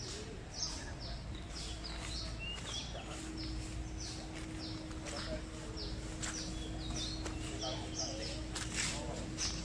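A bird calling over and over in short, quick falling notes, about two a second, with a faint steady hum underneath.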